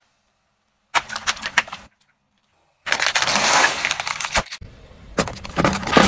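Car tyre crushing objects in short bursts of crackling and crunching, separated by dead silence: a water-bead-filled balloon squashed until it splits, then aluminium drink cans crushed, the fizzy drink spraying out.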